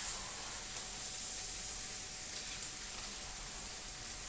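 Chinese cabbage frying in a hot pan: a steady sizzle.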